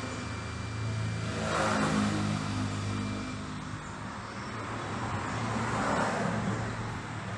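Motorcycle engine running steadily, swelling up twice as if briefly revved.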